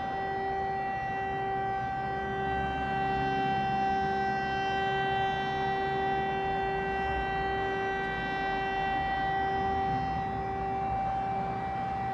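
Civil-defence siren holding one steady, unbroken tone, the German all-clear (Entwarnung) signal.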